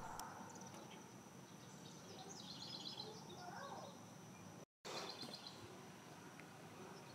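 Faint outdoor ambience with birds chirping now and then, over a thin steady high tone; the sound cuts out for a split second just before five seconds in.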